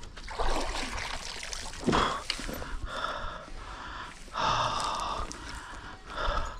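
A person breathing heavily: a series of loud breathy puffs and gasps, the longest a little over halfway through.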